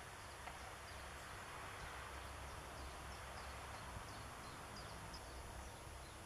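Faint steady outdoor background noise with scattered soft, short, high ticks and chirps.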